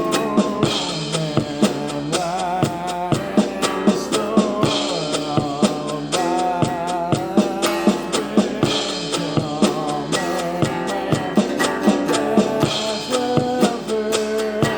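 Background music with a steady drum-kit beat and a melody over it.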